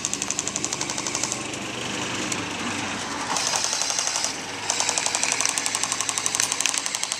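A&K Para SAW airsoft electric machine gun firing full-auto, a rapid even clatter of shots. The first burst stops about a second in and a second burst starts about two-thirds of the way through. The utility vehicle's engine runs steadily underneath.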